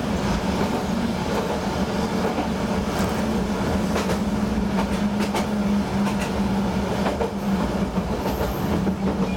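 Diesel railcar engine idling while the train stands at a station, a steady low hum. A few faint clicks come in the middle.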